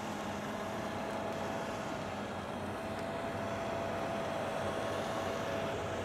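Fendt 10T combine harvester and a Valtra tractor running side by side at a steady drone while the combine unloads oilseed rape through its auger into the trailer, with a steady whining tone throughout.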